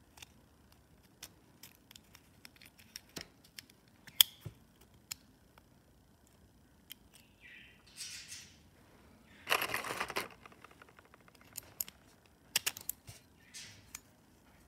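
Small metal clicks and scrapes from a hand-held steel trigger-and-sear assembly as it is handled and its parts are worked. A short rasping scrape comes about ten seconds in, and a quick run of sharp clicks about three seconds later.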